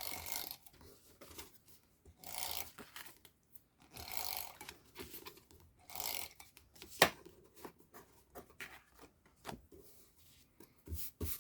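Card and paper being handled and rubbed: four short scraping strokes about two seconds apart, then lighter ticks and one sharp click about seven seconds in.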